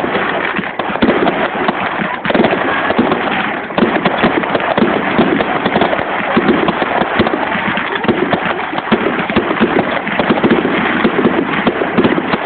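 Fireworks display: shells launching and bursting overhead in a dense, continuous stream of bangs and crackle.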